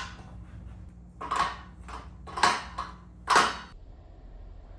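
Five or so metallic clinks and clanks over about two and a half seconds, starting about a second in: tools and bolt hardware knocking against the steel frame during assembly of a home-gym rack.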